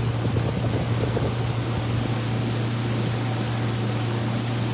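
A small boat's engine running steadily under way, a constant low hum.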